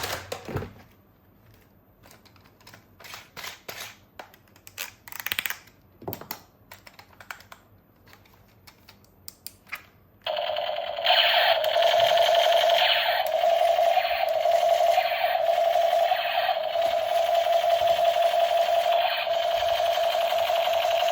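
Plastic toy pieces clicking and rattling as they are handled, then about ten seconds in a battery-powered toy gun starts a steady, loud buzzing sound effect that keeps going.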